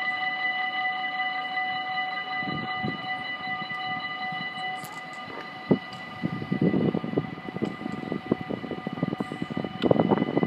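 Railway level-crossing warning bell ringing steadily, cutting off near the end. From about halfway an irregular low rumble builds up underneath, louder near the end.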